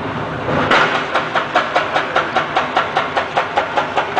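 Electric potato-slicing machine running with a steady motor hum. About a second in, its blade starts cutting a fed potato, making a rhythmic clack about five times a second as each slice is cut.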